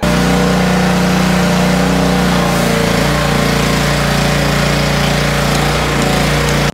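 Honda 187 cc engine of a Craftsman 3200 PSI gas pressure washer running steadily under load, with the hiss of high-pressure water spraying from a Kärcher 15-inch surface cleaner as it is pushed across a garage floor.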